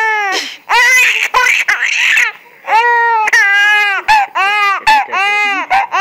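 A young infant laughing: a run of short, high-pitched squealing laughs, with breathy gasps about a second or two in.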